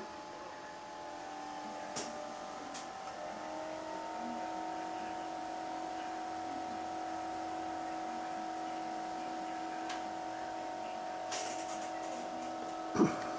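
Steady electrical hum and whir from running bench electronics, made of several fixed tones that shift in pitch and grow slightly louder about three seconds in, with a few faint clicks and a sharp knock near the end.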